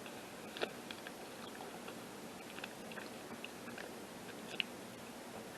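Close-up chewing of a soft-baked double chocolate brownie bar: faint, irregular wet mouth clicks. Two sharper clicks stand out, one about half a second in and one near the end.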